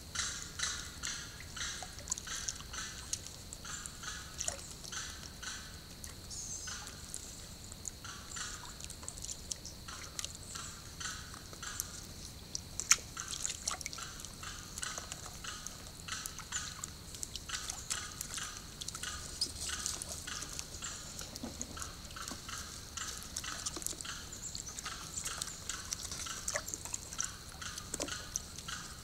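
Water dripping and splashing in shallow swamp water: many short wet clicks a second over a steady high hiss, with one sharper click about 13 seconds in.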